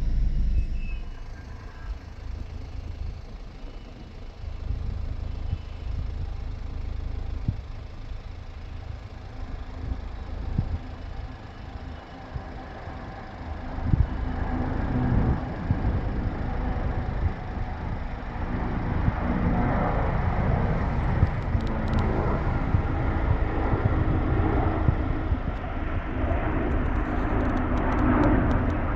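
Airbus Beluga XL's twin Rolls-Royce Trent 700 turbofans at take-off power: a low rumble that grows louder and fuller from about halfway through.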